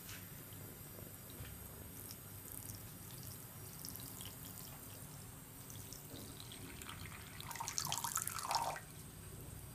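Thin stream of tap water running into a bathroom sink and splashing onto a cat lying in the basin. A louder burst of sound comes about eight seconds in.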